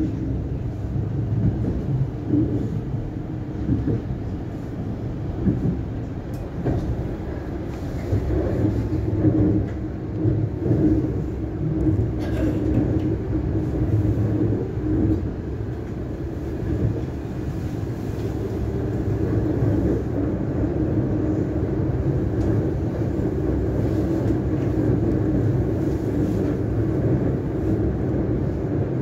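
Siemens Nexas electric train running along the line, heard from inside the carriage: a steady rumble of wheels on rails with a hum underneath and a few faint clicks.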